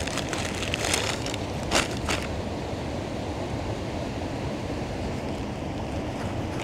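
A bread bag rustling and crinkling as a loaf is pulled out of it, with two sharp crackles about two seconds in. A steady rushing background noise runs underneath throughout.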